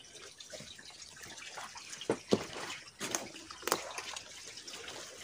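Footsteps crunching through dry leaf litter and twigs on a forest floor, with a few sharper snaps and rustles over a faint steady hiss.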